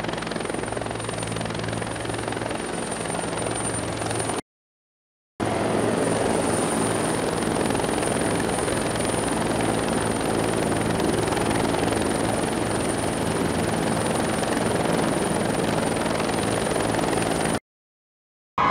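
Helicopter flying past: steady rotor and turbine engine noise with a thin high whine above it. The sound drops out for about a second a few seconds in, returns louder, and drops out again near the end.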